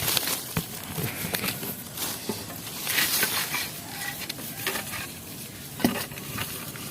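Irregular rustling, scraping and small knocks of someone climbing a tree, hands and feet working against bark, branches and leaves, with one sharper knock about six seconds in.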